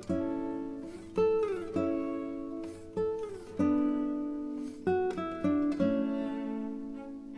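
Background music: acoustic guitar plucking chords that ring out and decay, roughly one or two a second, with a few notes sliding down in pitch.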